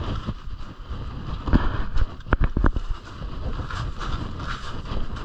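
Rustling and buffeting from a jacket brushing against the camera's microphone, with a few sharp knocks about two seconds in.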